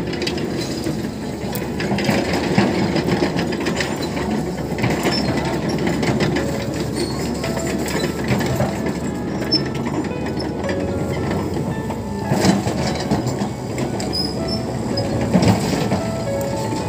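Caterpillar crawler excavator travelling and swinging, its diesel engine running with the steel tracks clanking and giving short squeaks as they roll over the gravel.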